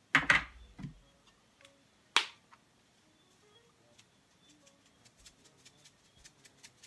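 Kitchen handling sounds as a pinch of salt is added to the cake mix: a short rustling scrape at the start, a single sharp click about two seconds in, then faint irregular ticking.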